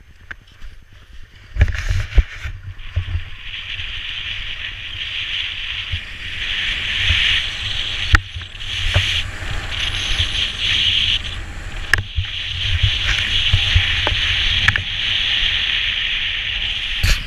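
Skis sliding and scraping over snow: a steady hiss that starts about a second and a half in, with wind rumbling on the microphone and a few sharp knocks.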